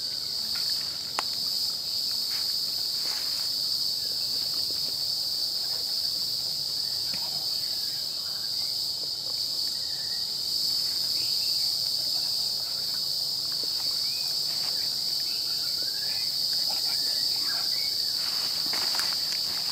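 Insect chorus: a steady, high-pitched drone that does not let up.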